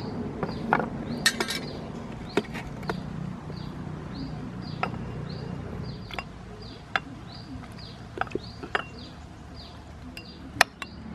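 Metal ladle clinking against ceramic bowls and a metal tray while pickled limes are spooned from bowl to bowl: a dozen or so scattered sharp clinks, with a cluster about a second in and the loudest near the end.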